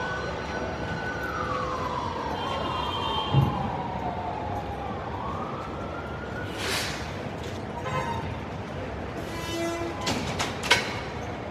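Emergency vehicle siren wailing, its pitch holding high, sliding slowly down, then rising again. A few short knocks sound near the end.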